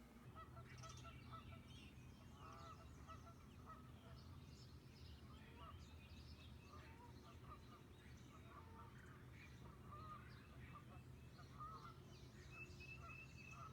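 Faint flock of geese honking: many short calls, overlapping and scattered throughout, over a steady low hum.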